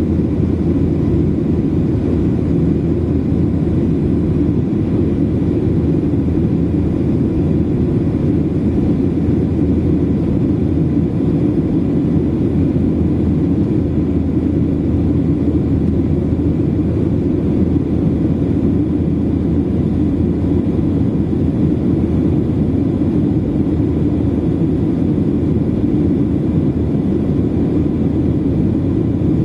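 Airliner cabin noise during the climb after takeoff: a steady, low rumble of engines and rushing air, with a few faint steady tones above it.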